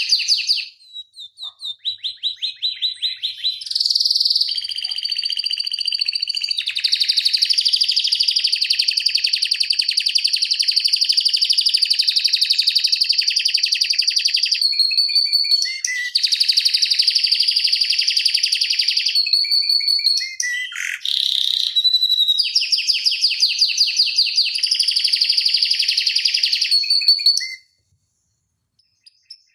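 Domestic canary singing a long rolling song: runs of very fast trills, several seconds each, broken by short pauses and single whistled notes. The song stops shortly before the end.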